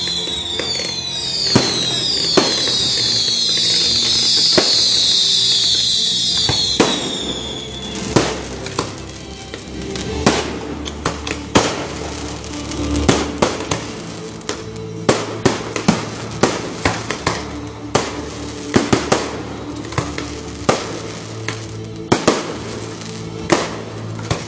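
Fireworks display: for the first eight seconds or so many whistling fireworks overlap, each falling in pitch, then a rapid, irregular string of sharp bangs from aerial shells bursting.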